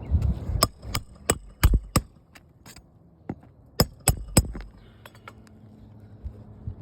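A hammer driving roofing nails into asphalt shingles: five sharp metallic strikes in quick succession, then a pause and three more.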